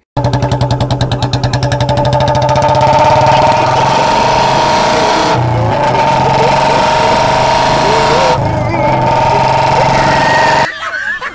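Small engine running steadily at a constant pitch, with a rapid pulsing for the first couple of seconds, then cutting off suddenly near the end.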